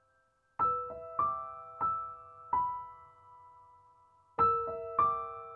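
Soft background music: a slow melody of single piano-like notes, each struck and left to ring. There is a short run of notes, a pause, and the melody resumes a little over four seconds in.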